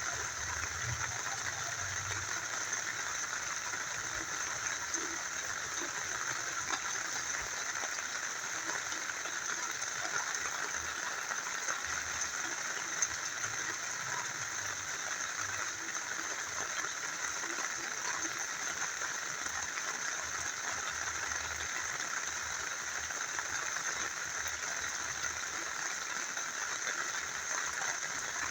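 Rain falling together with a small river flowing: a steady, even wash of water noise.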